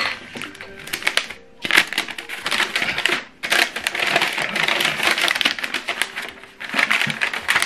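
A folded paper instruction leaflet rustling and crackling as it is handled and opened out, in three stretches of dense crinkling broken by short pauses.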